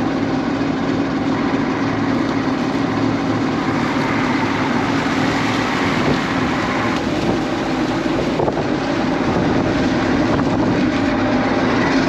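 John Deere 6620 combine running steadily, its diesel engine and machinery making a constant mechanical drone.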